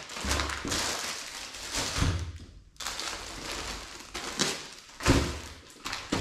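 Plastic-bagged packages being picked up and set down on a cloth-covered table: plastic bags rustling, with several thumps as they land.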